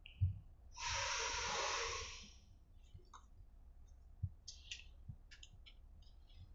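Close-up eating sounds of spicy seblak: a breathy rush of air lasting about a second and a half near the start, then a scatter of small wet clicks of chewing and mouth noises.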